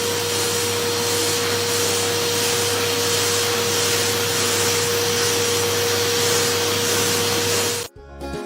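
Steady whooshing noise of an electric air-moving appliance's motor, with a steady mid-pitched tone and a low hum running under it. It cuts off suddenly near the end.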